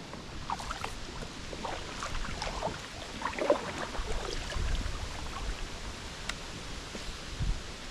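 Outdoor river ambience: a steady hiss with a low rumble that swells about four seconds in, and scattered short high chirps throughout.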